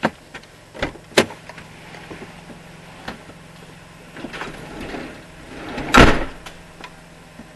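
Minivan doors: a few clicks and clunks in the first second or so, then a sliding door rolling along its track and latching shut with a loud thump about six seconds in.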